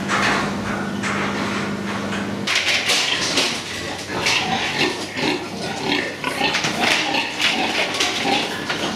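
Piglets squealing and grunting in a pig farrowing crate, many short high cries overlapping, starting abruptly about two and a half seconds in. Before that there is a steady hum.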